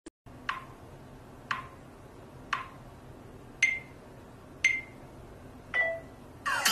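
Smartphone camera countdown timer ticking, six short ticks about a second apart, the last three with a brief higher beep. Music starts near the end.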